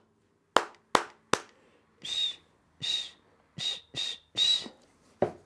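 Three sharp percussive clicks, then five short breathy whistled toots, then one more click near the end.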